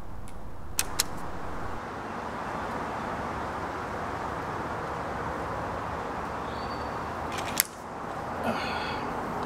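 Steady outdoor background hiss with sharp clicks: two close together a little under a second in, and a louder one near the end, from a Gamo air rifle being handled.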